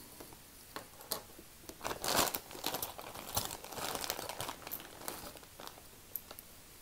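Clear plastic bag crinkling as a hand rummages through costume jewelry inside it, with scattered small clicks of pieces knocking together. It is loudest about two seconds in.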